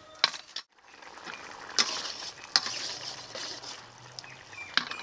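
Thick prawn curry gravy boiling in a metal kadai, a steady bubbling hiss with sharp pops of bursting bubbles. Two clicks in the first second come from a wooden spoon knocking the pan.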